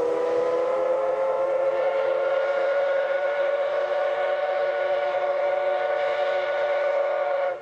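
Steam whistle of the JNR Class C58 locomotive C58 363, blown in one long, loud, steady blast that cuts off suddenly near the end.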